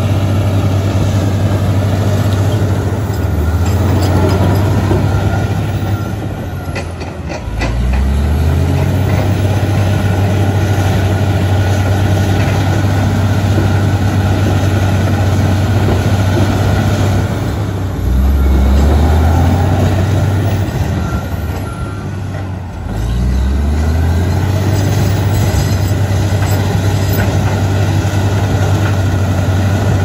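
Komatsu D85EX crawler dozer's six-cylinder diesel engine running hard while pushing soil and rock. The engine note sags and then climbs back up in pitch several times, about eight, eighteen and twenty-three seconds in.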